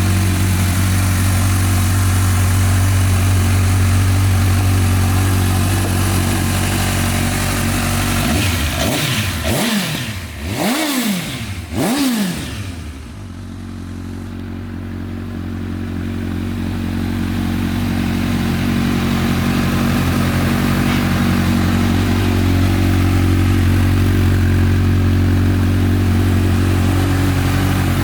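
2016 Honda CBF1000's inline-four engine idling steadily, blipped three times in quick succession about nine to twelve seconds in, each rev rising and falling quickly, then settling back to idle.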